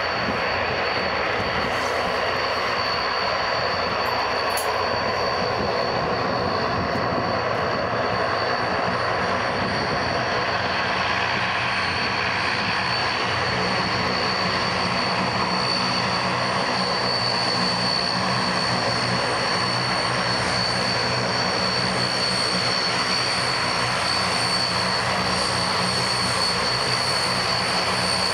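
Antonov An-32's two Ivchenko AI-20 turboprop engines running as the aircraft taxis: a steady propeller drone with a constant high turbine whine.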